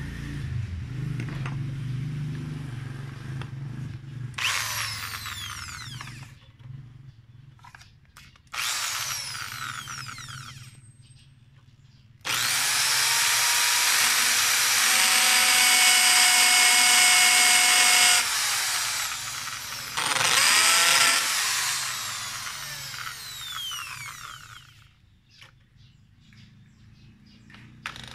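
Corded electric drill run in several separate bursts, speeding up and winding down each time, drilling into a hardwood post. The longest and loudest run, with a steady whine, comes around the middle.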